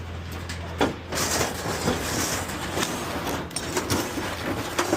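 Scrap metal being shifted around on a trailer: a sharp knock just under a second in, then a long stretch of metal scraping and rattling with small clanks.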